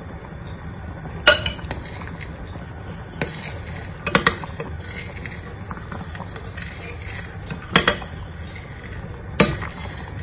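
Metal spoon stirring thick chocolate rice porridge in an amber glass pot, clinking sharply against the glass several times, some of the clinks in quick pairs. The stirring keeps the cocoa powder mix from clumping.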